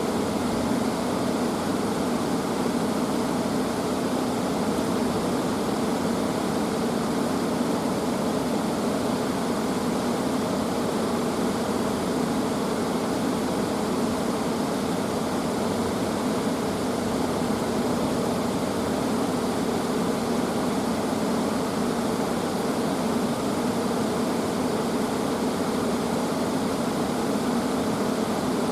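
Steady, even rushing noise, unbroken and unchanging in level, with its weight in the lower-middle range.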